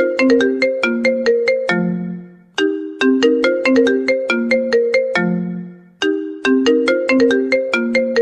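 Mobile phone ringtone: a short melody of quick, decaying notes ending on a low held note, repeating about every three and a half seconds.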